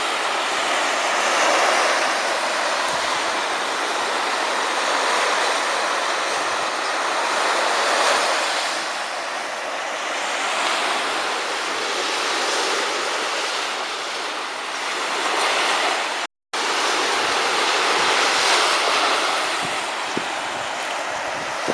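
Black Sea surf breaking on the beach, a steady wash that swells and fades every few seconds, cut off briefly about three-quarters of the way through.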